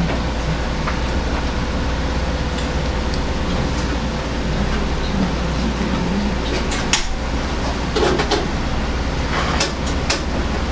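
Steady low hum of kitchen background noise, with a few light sharp clicks about two-thirds of the way in and again near the end: a sashimi knife touching the cutting board as a tiger puffer fillet is sliced.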